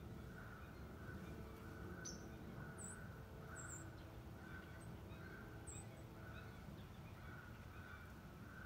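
Faint birdsong in woodland: a soft note repeating steadily, with a few very high, short chips, over a low background rumble.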